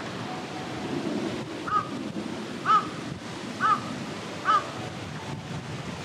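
A crow cawing four times, about a second apart, over a steady rush of wind and rain.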